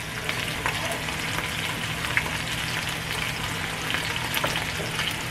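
Salmon fillet searing in hot oil in a nonstick frying pan: a steady sizzle with scattered small pops of spattering oil.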